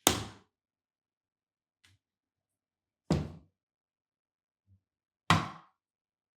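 Door meeting a magnetic door catch: three sharp clacks, each dying away within half a second, about two to three seconds apart. Before the second and third there is a much fainter tick as the door pulls free of the magnet.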